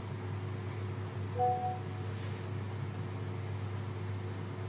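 Steady low hum of background noise, with a brief faint two-note tone about one and a half seconds in.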